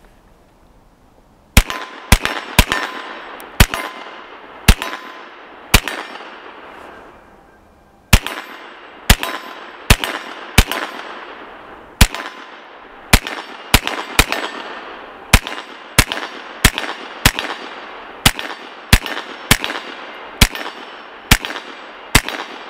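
Ruger PC Carbine 9mm semi-automatic carbine firing, unsuppressed: a string of about six shots, then after a two-second pause a long steady string at about two shots a second, each shot ringing out briefly behind it.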